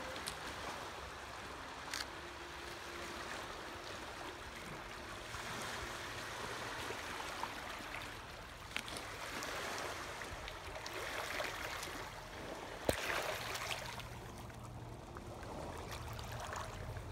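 Small waves lapping and washing over a rocky shoreline, a steady splashing wash, with a few sharp clicks; the loudest comes about two thirds of the way through.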